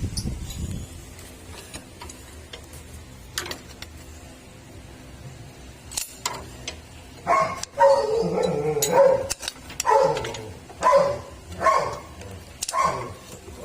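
A dog barking repeatedly, a run of short barks about a second apart through the second half, after a few faint clicks.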